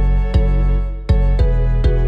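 Instrumental background music: evenly struck notes sounding about two a second over a sustained low bass.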